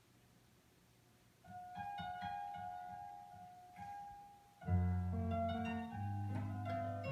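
Keyboard music with a piano sound. After a quiet first second and a half, a simple tune of held notes begins, and low bass notes join about two-thirds of the way in.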